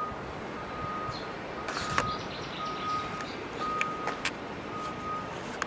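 An electronic warning beeper sounding at one steady pitch, about once a second, each beep about half a second long. A few sharp clicks and rustles sound alongside.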